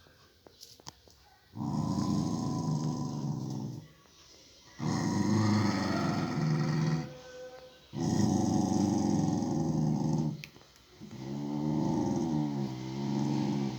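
Dog growling in four long, drawn-out growls of about two seconds each, with short pauses between them; the last one wavers up and down in pitch. It is a food-guarding warning, telling a person to keep away from her food.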